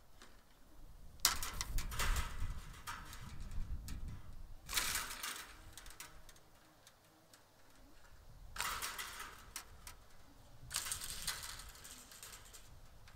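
Long-handled bolt cutters snipping through the wires of a woven-wire fence, in four bursts a few seconds apart, each with sharp clicks.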